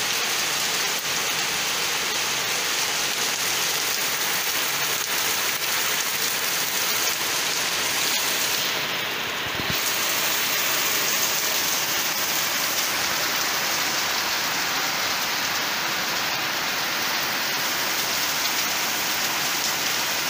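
Very heavy rain pouring down steadily, a dense, unbroken sound of downpour on the ground.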